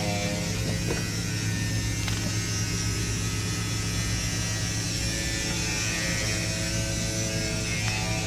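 BAL Accu-Slide RV slide-out motor running steadily, driving the slide room on its newly replaced cables in a test run. It is an even electric hum with a faint high whine.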